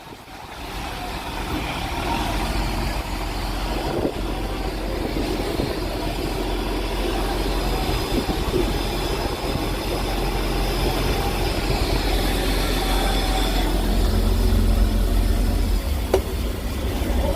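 Fishing boat's engine running steadily, a low hum that grows gradually louder over the stretch.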